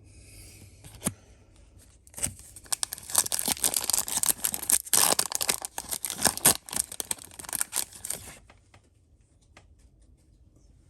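Foil wrapper of a Yu-Gi-Oh booster pack being torn open and crinkled: a dense crackling that starts about two seconds in and lasts about six seconds, with a single sharp click just before it.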